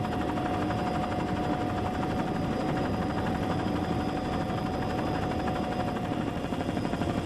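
Steady engine drone, even in level throughout, with a steady hum running through it.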